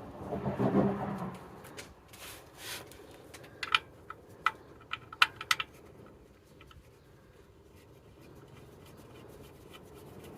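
Metal clinks and scraping while the engine oil drain plug is refitted by hand under the car. After a brief low rumble at the start, there are several sharp clicks with a short ringing in the middle.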